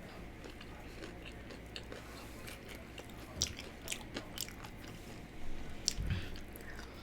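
A person chewing a mouthful of burger, with short wet mouth clicks and smacks scattered through, thickest past the middle. There is a low thump about six seconds in.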